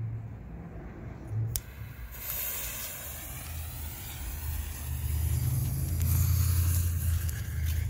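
Burning fuse on a mortar rack loaded with 60g canister shells, hissing and throwing sparks from about two seconds in, over a steady low rumble. The fuse is burning down toward the first shell.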